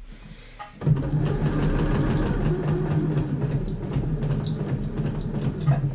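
Electric sewing machine running at a steady speed, its needle stitching through a paper practice sheet. It starts about a second in and stops just before the end.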